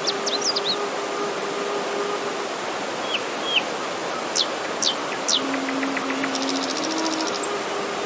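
Forest stream rushing over rocks as a steady wash, with small birds giving several quick falling chirps and a fast trill near the end. Under it, a soft bamboo flute (suling) holds long low notes, changing pitch about two-thirds of the way in.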